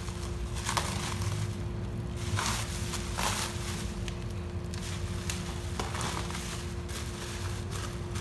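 Bubble wrap and foam packaging sheet rustling and crinkling in irregular bursts as it is pulled open and unwrapped by hand.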